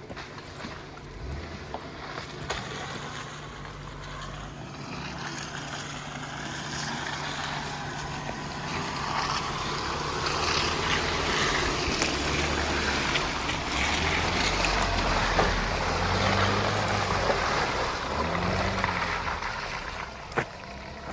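Off-road vehicle's engine working under load, its revs rising and falling as it crawls over a trail obstacle, with tyres scrabbling on dirt and rock; the noise builds to its loudest in the middle and eases off toward the end.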